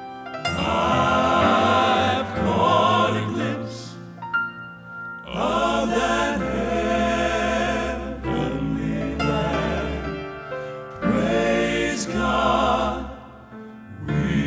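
Male gospel quartet singing in four-part harmony with piano accompaniment, in held phrases with vibrato separated by short pauses.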